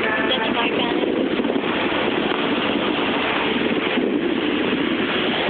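Steady rushing noise close to the microphone, even in level throughout, with a trace of a voice at the very start.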